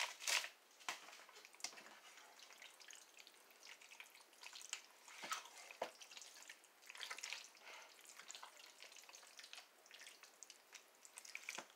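Wooden spoon stirring a thick chicken and vegetable mixture in a slow cooker's crock: faint wet stirring with scattered scrapes and light knocks against the sides.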